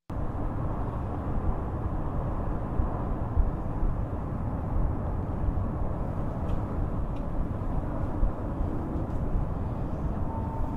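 Hurricane wind buffeting the microphone: a dense, gusty low rumble with no let-up.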